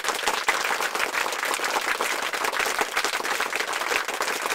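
Applause: many hands clapping densely and steadily.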